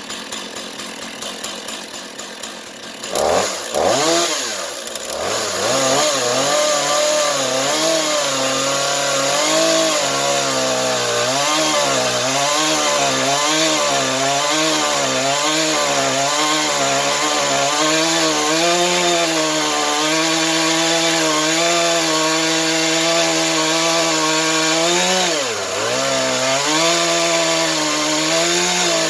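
Chainsaw on a rail-guided chainsaw mill, idling and then opened up about three seconds in. It runs at full throttle, its pitch wavering as it cuts a slab along the log, drops briefly near the end as it bogs under load, and picks back up.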